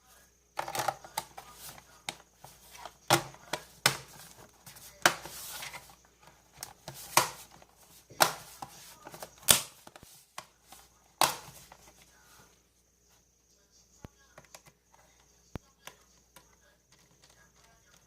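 Sharp clicks and knocks of a Samsung NT-RC510 laptop's hard case and parts being handled during a RAM upgrade, coming thick for about the first twelve seconds, then dying down to faint scattered ticks.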